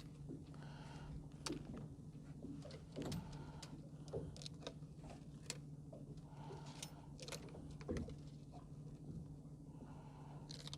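Fishing tackle being handled: scattered light clicks and small rattles as the sneakline's hooks and gear are worked with to bait them with mackerel, over a steady low hum.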